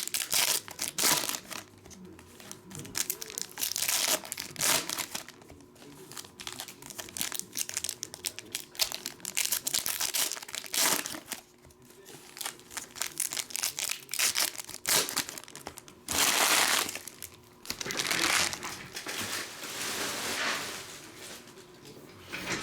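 Trading card pack wrappers being torn open and crinkled, in irregular rustling bursts, the longest about two-thirds of the way through.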